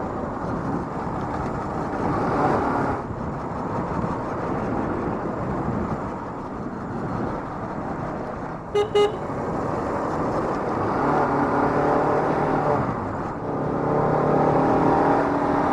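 Bajaj Pulsar RS200's single-cylinder engine running steadily while riding, with two short horn beeps about nine seconds in. The engine note grows louder and clearer over the last few seconds.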